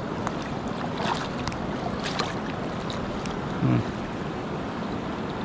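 Steady rushing of shallow river water over gravel, with a few light splashes and clicks in the first half as the landing net is worked off a steelhead in the shallows. A short low vocal sound comes about three and a half seconds in.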